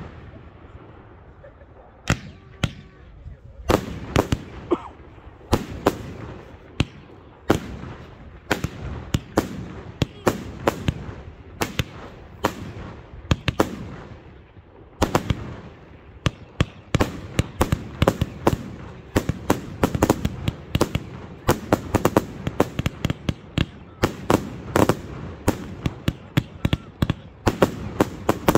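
Professional fireworks display: a run of sharp bangs from shots and bursts, a few at a time at first, then coming fast, several a second, from about halfway through.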